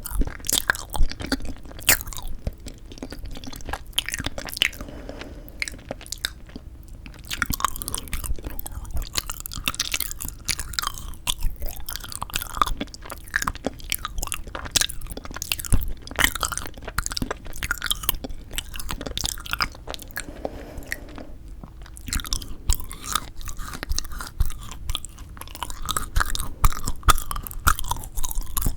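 Close-miked chewing and biting of frozen sweet red bean jelly (yanggaeng): irregular crunchy bites and wet mouth sounds as the icy block is rolled and chewed.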